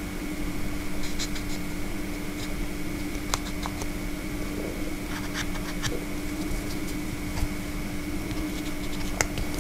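Felt-tip marker pen ticking and scraping on the metal housing of a small synchronous gear motor as marks are drawn on it: a few faint clicks and scratches over a steady background hum.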